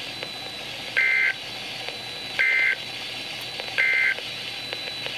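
NOAA Weather Radio EAS end-of-message signal: three short two-tone digital data bursts, each about a third of a second long and about 1.4 seconds apart, over faint radio hiss. It marks the end of the alert message.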